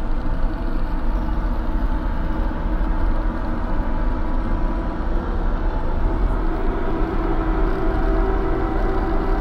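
Steady, dense low rumbling drone with no breaks. In its second half a few faint held tones rise out of it.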